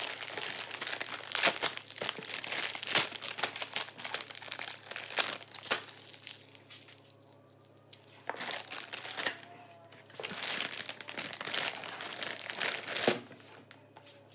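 Plastic food packaging crinkling as bagged groceries are handled and shifted about in a cardboard box, in irregular bursts with a pause of about two seconds in the middle; it stops shortly before the end.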